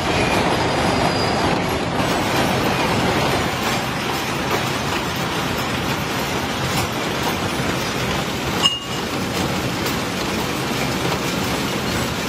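Gear-cutting machine cutting teeth into a stack of steel motorcycle sprocket blanks, a steady mechanical metal-cutting noise. A single sharp click comes near the end.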